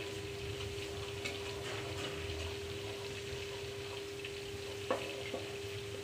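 Tomato and yogurt masala sizzling in an aluminium pot as a spatula stirs it, with a sharp knock of the spatula against the pot about five seconds in. A steady hum runs underneath.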